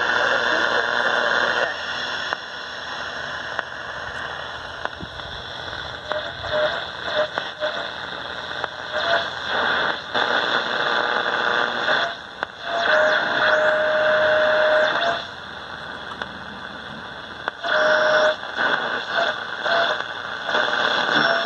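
1950 Zenith Trans-Oceanic G500 tube shortwave receiver being tuned across the band: loud hiss and static that swells and drops as the dial moves, with short steady whistles now and then, the longest about two seconds, a little over halfway through.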